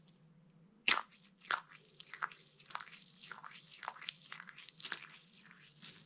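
Dry soap curls and crumbs crushed between the fingers: a sharp crack about a second in, another half a second later, then a quick run of crisp crunches.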